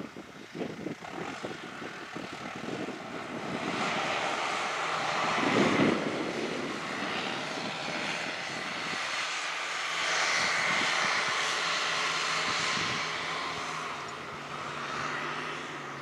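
Tractor engine running steadily as the tractor drives across the field carrying a round silage bale, growing louder a few seconds in and again about two-thirds of the way through.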